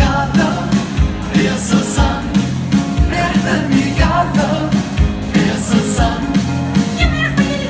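Arabic cartoon theme song: a sung melody over a steady drum beat, played loud.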